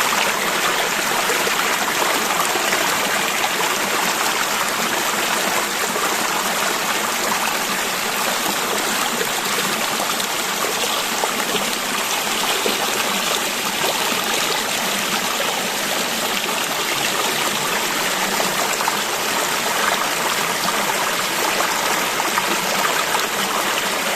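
River water flowing steadily over stones, an even babbling rush.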